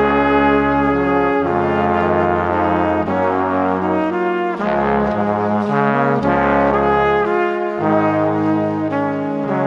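Background music: a melody of held pitched notes over a bass line that changes note every second or two.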